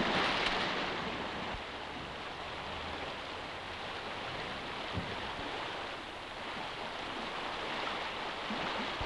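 Fast river water rushing steadily over rocks, with a brief splash in the first half second as a trout thrashes at the surface.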